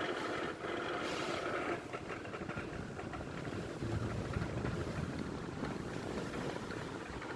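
Regency electric fan running and making an abnormal, strange noise, an uneven mechanical rumble that turns lower and heavier about four seconds in.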